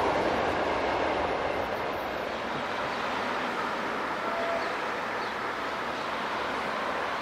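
Receding passenger train hauled by an LDE2100 diesel-electric locomotive: a steady rumble of wheels on the rails, fading over the first couple of seconds and then holding steady at a lower level.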